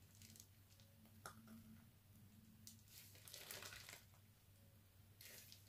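Faint crinkling and rustling of a plastic piping bag being squeezed to pipe mousse into a mould, loudest about three seconds in and again near the end. A low steady hum runs underneath.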